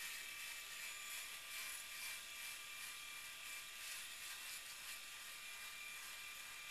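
Philips Norelco 8240 Speed XL rotary electric shaver running steadily as it shaves stubble on the cheek: an even buzz with a thin whine in it.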